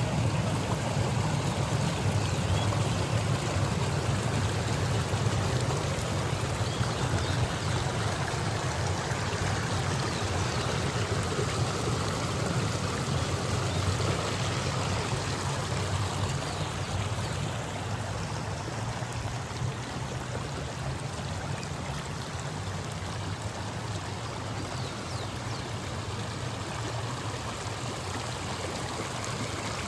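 Steady noise of flowing water from a stream, growing slightly quieter in the second half.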